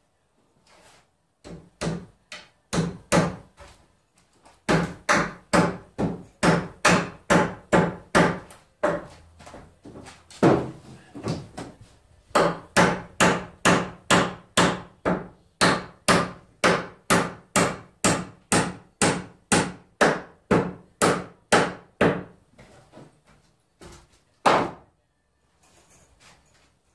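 Hand hammer driving nails into wooden wall framing: a long run of strikes at about two a second, with a few short breaks, and two last blows near the end.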